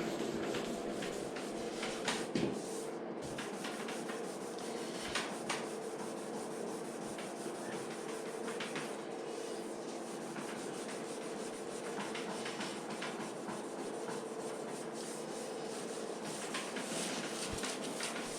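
Sandpaper rubbing back and forth over a painted scooter side panel, sanding out a paint run, over a steady low hum.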